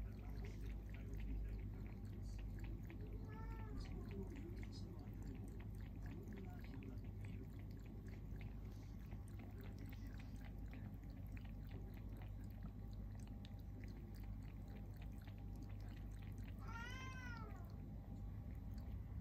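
A calico cat lapping water from a ceramic bowl, a quick run of small wet ticks. Another cat meows faintly about three seconds in and clearly near the end.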